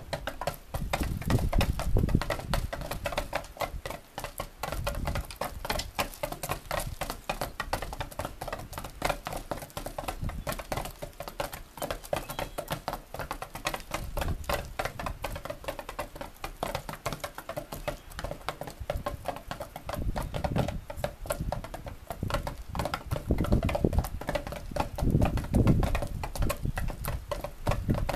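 Barred Rock hens pecking rapidly at dried mealworms, their beaks tapping many times a second, with low clucking now and then.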